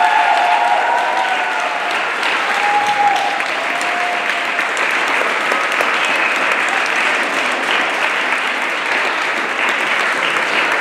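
Audience applauding steadily, with the last held note of a children's choir dying away in the first second.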